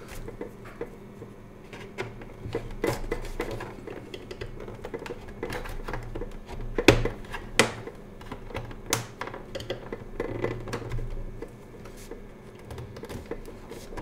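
Metal pry tool working around the plastic back case of a Lenovo IdeaCentre all-in-one PC: scattered clicks and scrapes of metal on plastic, with a few sharp snaps, the loudest about seven seconds in.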